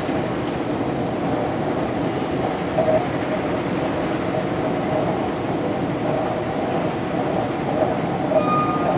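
Steady running rumble of a Stockholm metro train, with a short, steady high tone near the end.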